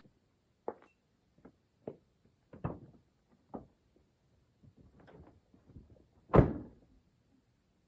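A scattered series of light knocks and thuds, about a dozen in all, with one louder thump about six and a half seconds in.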